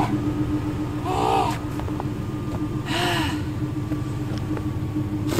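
A person gasping and panting, winded from dragging and lifting a heavy deer, with strained voiced gasps about a second in and again about three seconds in. Underneath, a pickup truck's engine idles steadily.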